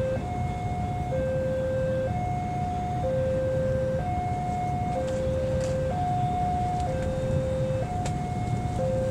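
Railway level-crossing warning alarm sounding a two-tone chime, a low note and a higher note taking turns, each held about a second, over the low rumble of a diesel locomotive coming slowly up the line.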